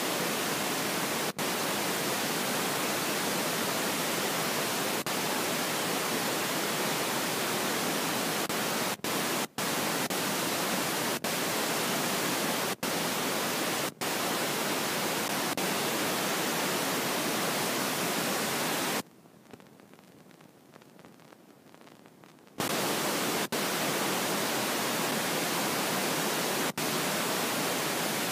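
Steady static hiss, even from low to high pitch, broken by a few brief dropouts and a quieter stretch of a few seconds about two-thirds of the way in.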